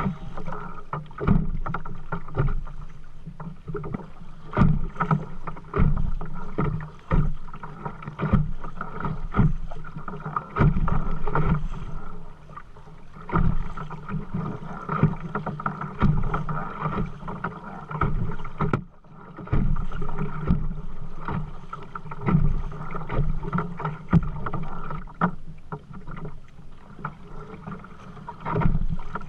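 Kayak paddling: repeated paddle strokes splashing in the water and knocking against the boat, with a brief lull about two-thirds of the way through, over a steady low hum.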